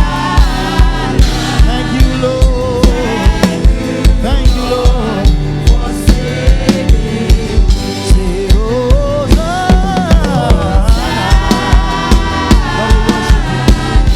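Live gospel praise music: a worship team singing over a band with a drum kit keeping a steady, driving beat.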